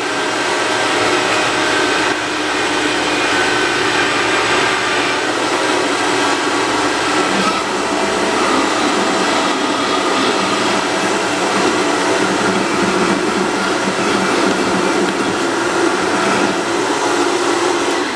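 Vitamix blender running at speed, blending a thick smoothie of greens and frozen fruit. It is switched off at the end, and its pitch falls as the motor winds down.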